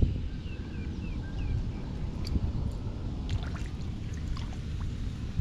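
Shallow muddy puddle water sloshing and dripping as hands and feet move through it, with scattered small splashes and drips over a low rumble.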